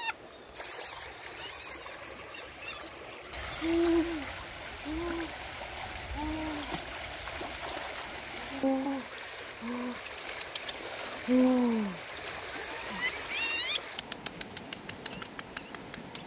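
Water splashing and trickling, then a series of short hooting coo calls from young monkeys, each one arching up and falling in pitch. Near the end come a few quick rising squeaks and a fast run of clicks.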